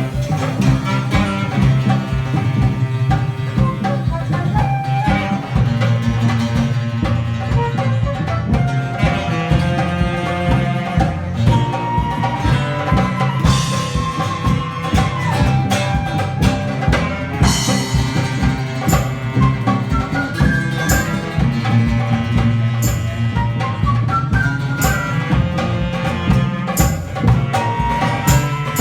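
A band playing live: a melody line over busy, steady drumming.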